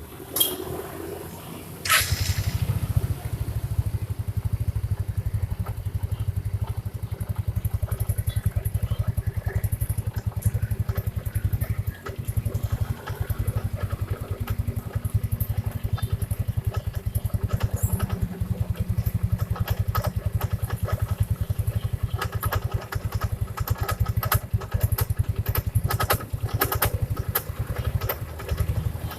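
Yamaha Mio scooter's single-cylinder four-stroke engine starting about two seconds in, then idling with a steady, even pulsing. This bike's complaint is a rough knocking noise from the CVT area at idle, which the mechanic later traces to something rubbing at the front of the CVT.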